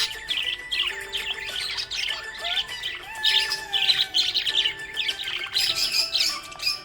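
Budgies chirping and warbling in a rapid, continuous stream of short high notes, over background music with long held tones.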